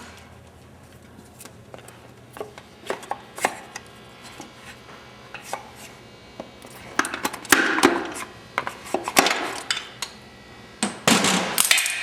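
Metal engine parts being handled during a short-block teardown: scattered light clicks and clinks, turning into busier clattering and scraping in the second half.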